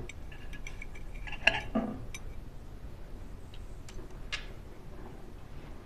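Knife and fork clinking and scraping on a plate, cutting into a beef Wellington: a few light taps, the loudest about a second and a half in, and one more click a little after four seconds.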